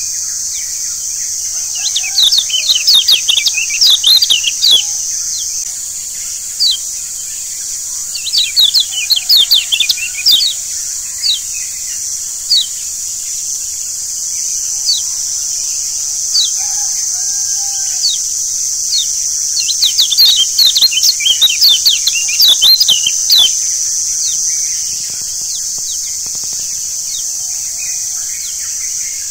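Yellow white-eyes (kecial kuning, Zosterops) calling in three bouts of rapid, sharp, high chirps, with single chirps between them. A steady high hiss of background noise runs underneath, and faint lower calls come in now and then.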